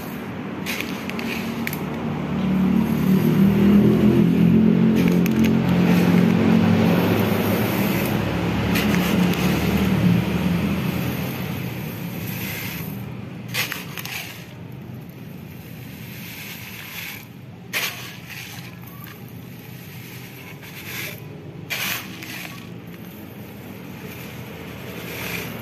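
Scraping and crunching from work on a motorcycle muffler being packed with sand in place of glasswool, with a few sharp knocks in the second half. A low hum runs under the first half.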